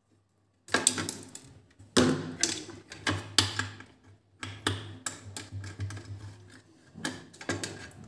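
Handling noise from electrical wiring work: clicks, taps and scraping as a wire is stripped with pliers and fitted into the terminals of a plastic two-way switch. It comes in several bursts with short pauses between, over a faint low hum.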